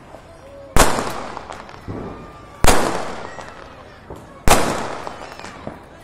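Three loud firecracker bangs, a little under two seconds apart, each echoing and dying away over about a second.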